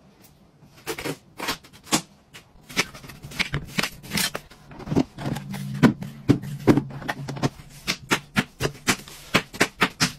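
Kitchen knife cutting watermelon on a plastic cutting board: many sharp, irregular taps and knocks, several a second, as the blade goes through the rind and strikes the board.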